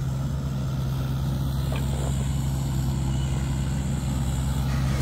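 An engine running steadily at a constant speed, a low even hum.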